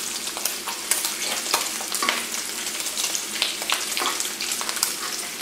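Bacon sizzling and crackling in an electric skillet, with many sharp pops of spitting fat. Light clicks and scrapes come from a metal fork turning the strips over.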